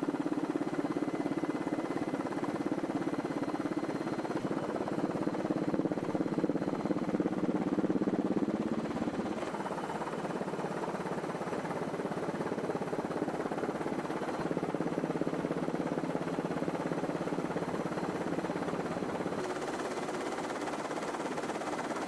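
Steady helicopter engine and rotor drone, heard from inside the aircraft, with a low hum whose pitch changes a few times.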